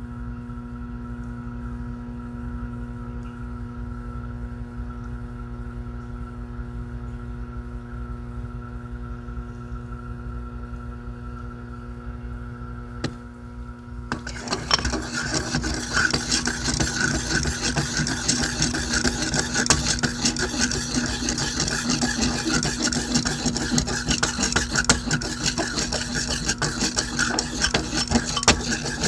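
A steady electrical hum with several fixed tones; about halfway through, a loud continuous rasping scrape starts, with many small clicks, as the metal blade of an athame (ritual knife) is rubbed and scraped.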